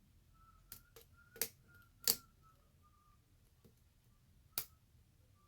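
Sharp, scattered clicks of a lock pick working the pins inside a pin-tumbler challenge lock during single-pin picking, about five clicks with the loudest about two seconds in. A faint thin wavering tone sounds under the clicks for the first few seconds.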